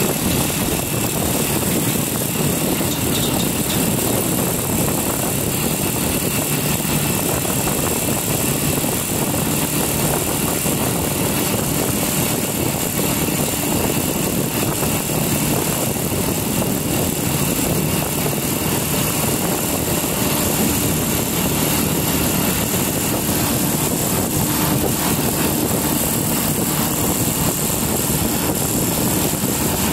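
Steady wind rush buffeting the microphone of a moving motorcycle, with the motorcycle's engine and road noise running underneath, unbroken and even.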